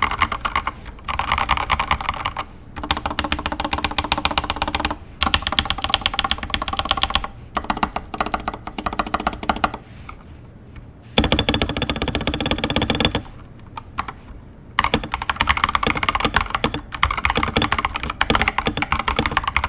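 Typing on a Gamakay LK67 mechanical keyboard in stock, unmodified form: fast runs of keystroke clicks, broken by a few short pauses.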